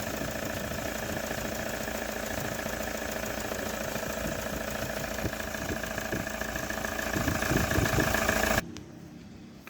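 Toyota Hilux 3.0 diesel engine idling steadily with the air conditioning on, running smoothly on its new water pump and accessory belt, with none of the loud noise the loose old pump made. It grows a little louder about seven seconds in, then cuts off abruptly near the end.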